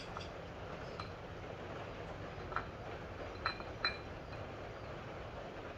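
A few light metallic clinks of metal parts and tools at the timing sprocket on the front of a bare LS 6.0 V8 block. The two loudest clinks come close together in the middle. A steady low hum sits underneath.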